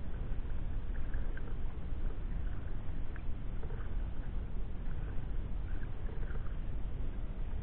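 Steady low rumble of wind on the microphone, with faint, regular splashes of sea kayak paddle blades dipping into the water.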